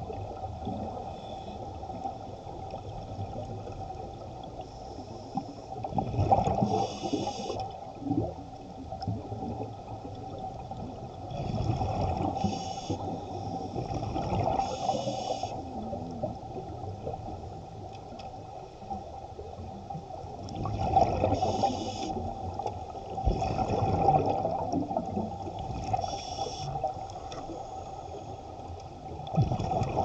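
Underwater recording of scuba divers breathing through their regulators: exhaled air bubbles gurgling out in bursts every few seconds over a steady underwater hum.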